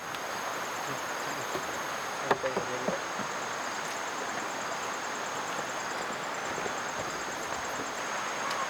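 Steady high-pitched insect trill over an even hiss, with a single knock about two seconds in.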